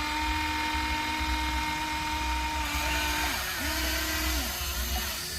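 Small electric motor of a radio-controlled toy vehicle whining as it runs. It winds up, holds, cuts out and starts again twice.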